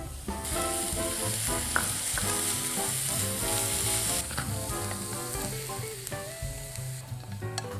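Sliced chicory caramelising with sugar in a non-stick frying pan, sizzling loudly for the first few seconds. The sizzle then dies down, and a utensil scrapes and taps against the pan near the end.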